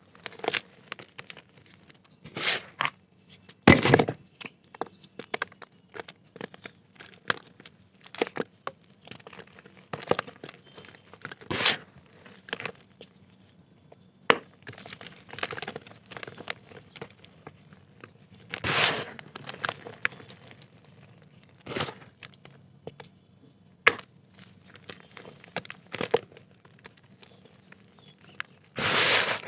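Dry black dirt pieces crunching and crumbling, with crackly crumbling throughout and a louder crunch every few seconds.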